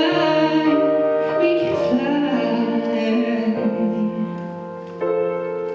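Song music: a ballad passage of sustained chords, with a new chord coming in about five seconds in.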